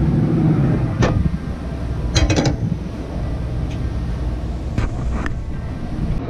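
Metal clanks from a Traeger pellet grill: a sharp clank about a second in, a rattling clank a little after two seconds as the lid is shut, and two lighter knocks near the end. Under them runs a steady low rumble.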